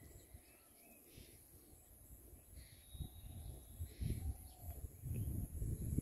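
Rural outdoor ambience: wind buffeting the microphone in uneven gusts that grow stronger from about three seconds in, with faint bird calls.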